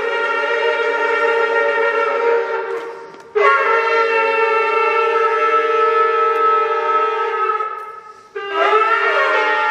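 Shofar blown in long held blasts: the first fades out about three seconds in, a second is held steady for about five seconds, and a third begins near the end with a brief upward slide in pitch.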